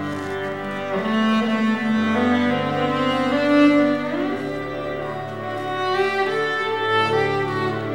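Bowed string music playing slow, sustained notes, with one note sliding upward about four seconds in.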